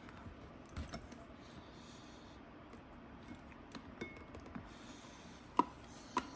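Scattered light clicks and taps of a Black & Decker angle grinder and its parts being handled, with two sharper clicks near the end.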